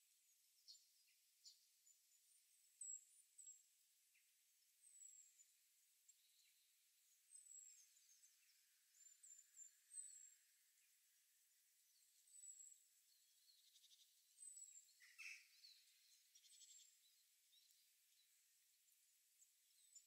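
Small birds calling faintly: thin, very high chirps repeated every second or two, with a few lower twitters and one louder falling call about fifteen seconds in, over a soft hiss.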